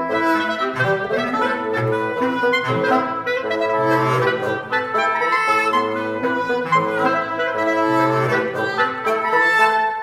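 Reed quintet of oboe, clarinet, soprano saxophone, bass clarinet and bassoon playing a busy contemporary passage of short staccato figures and quick swells up to loud accents, over held low notes.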